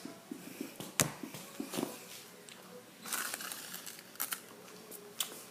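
Firework packaging being handled: plastic wrapping crinkling and rustling, with a few light clicks and knocks, the sharpest about a second in.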